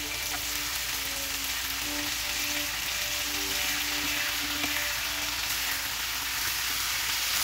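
Masala-coated chicken pieces sizzling steadily in hot oil in a nonstick frying pan while they are turned over, the first side fried crisp.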